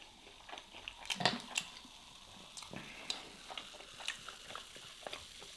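Cold cola poured from a plastic bottle into a glass mug, fizzing steadily, with a few sharp clicks along the way.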